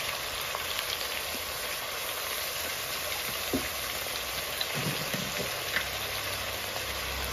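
Fried chicken pieces, sliced onions and ginger-garlic paste sizzling in hot mustard oil in a kadai: a steady hiss with scattered small crackles.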